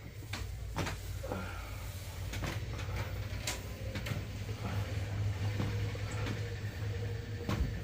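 Scattered sharp clicks and knocks during a manual chiropractic adjustment, with a louder knock near the end, over a steady low hum.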